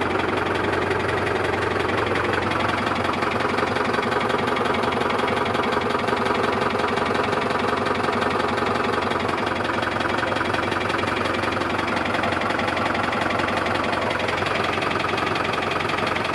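SAME Saturno 80 tractor's air-cooled diesel engine running steadily with an even, rapid diesel clatter.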